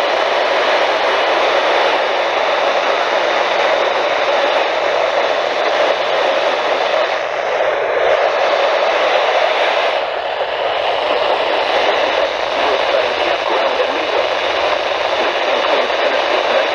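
Weather radio receiver putting out a steady hiss of static with no clear station signal.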